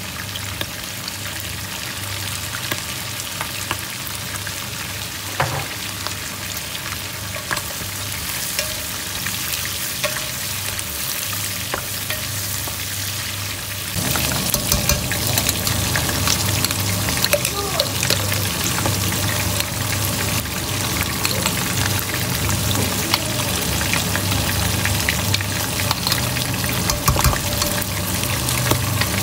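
Pork, onion and tomato frying in a pot: a steady sizzle with frequent crackles. About halfway through the sizzle becomes suddenly louder, with lentils now in the pot.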